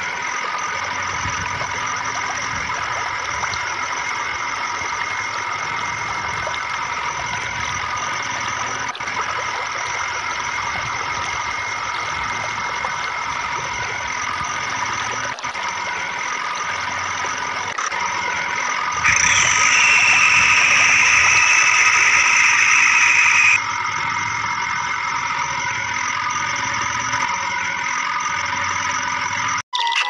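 A steady engine-like running drone with several fixed tones over a low rumble, as for a tractor at idle. A louder high-pitched tone joins it for about four seconds, roughly two-thirds of the way through.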